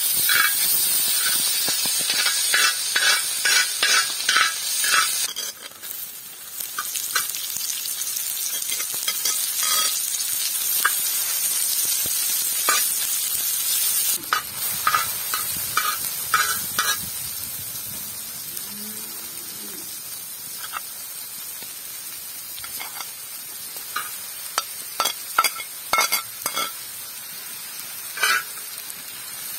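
Vegetables sizzling in a wide black metal pan while a metal slotted skimmer stirs them, with repeated short scrapes and clinks of the skimmer on the pan. The sizzle is louder in the first half and eases from about halfway.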